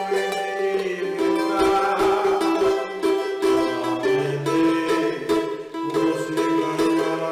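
Cavaquinho strummed in a samba rhythm, playing chords without singing; lower bass notes join underneath about four seconds in.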